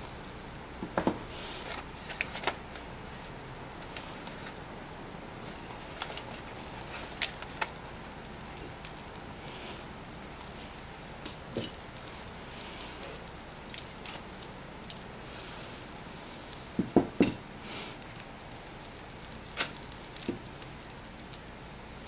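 Pork belly slices sizzling over charcoal on a mini fire pit grill, a steady hiss with scattered crackles and pops. A few louder knocks stand out, the loudest two close together late on.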